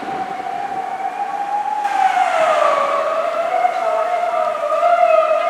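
Japanese police patrol car siren wailing. The single tone dips in pitch about two seconds in, then climbs back slowly with small wobbles.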